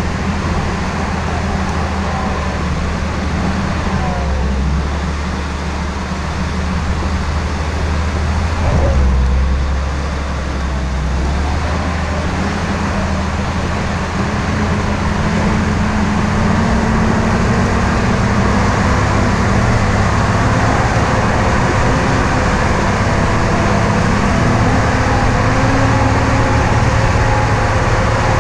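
Jeep CJ5 engine running as the Jeep drives over a dirt desert trail, with a steady rushing road and wind noise over it. The engine note sits low in the first half and runs higher and steadier in the second half.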